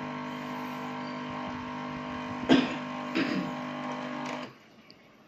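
Espresso machine's pump running steadily as an espresso shot pours into a glass, then cut off suddenly about four and a half seconds in when the shot is stopped.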